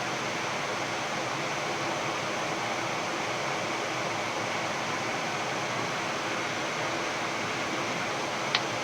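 Steady rushing hiss of airflow and air-conditioning noise on a Boeing 787-10 flight deck on final approach with the gear down. A single short click sounds near the end.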